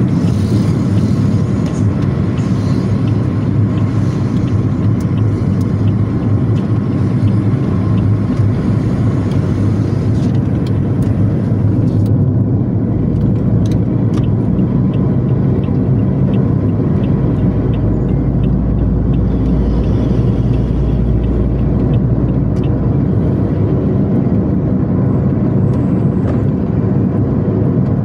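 Steady road noise inside a moving car's cabin: engine and tyre rumble while driving on the highway. A deeper low rumble swells for a few seconds past the middle.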